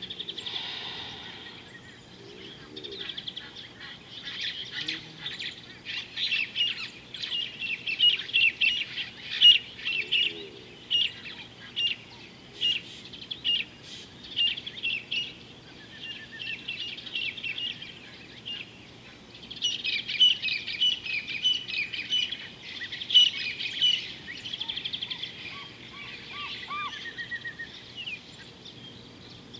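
Birds calling in rapid, repeated high chirps, in two long bouts with a short break past the middle, and a few short whistled notes near the end.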